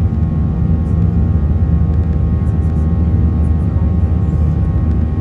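Airliner cabin noise while climbing after takeoff: a steady, loud low engine drone with several constant held tones above it.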